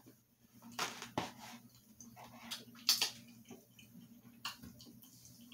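Close-up eating sounds: chewing and mouth smacks, with a few short crisp clicks as a soft chocolate cookie is pulled apart and set down in a cardboard box. A faint low hum runs underneath.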